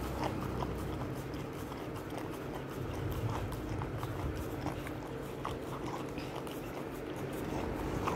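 Rottweiler puppy licking yogurt out of a small cup held in a hand: a run of quick, irregular licking and lapping strokes.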